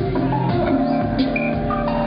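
Live electronic music played from a laptop set through a venue PA: held tones over a low bass line with plucked, guitar-like notes, the chord shifting about half a second in, and a few sharp percussive hits.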